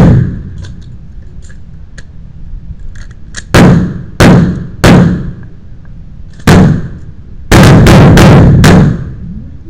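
Pistol shots with a short echo after each. Three come about half a second apart, then one alone, then a fast string of about five.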